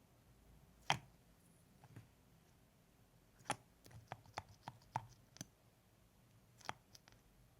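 Close-miked wet mouth clicks and lip smacks, sparse at first, then a quick run of about eight clicks in the middle and two more near the end.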